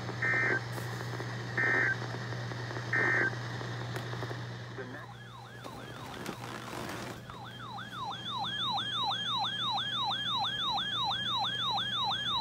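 Three short bursts of EAS/SAME digital data tones, the end-of-message code that closes an alert, about a second and a half apart. Then an electronic siren-like alert tone warbles up and down about three times a second, faint at first and loud from about seven seconds in, over a steady low hum.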